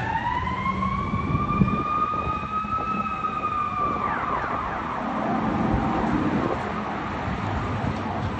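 Fire department siren wailing up in pitch over the first few seconds, holding, then dropping away sharply about four seconds in, with street traffic underneath.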